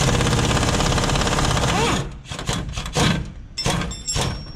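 Pneumatic impact wrench hammering rapidly for about two seconds, then a few sharp metal clanks.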